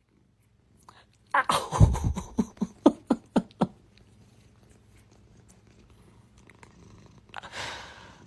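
A cat giving a quick run of short calls, about four a second, for a couple of seconds, then a brief burst of hissing noise near the end.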